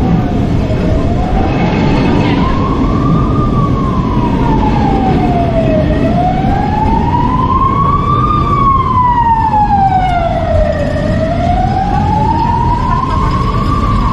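An emergency vehicle's siren wailing, its pitch rising and falling slowly about every five seconds, over a steady low traffic rumble.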